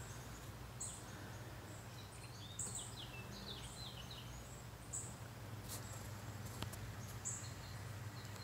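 A songbird singing short phrases, each a high note followed by a few quick lower chirps, repeated every couple of seconds, over a steady low hum.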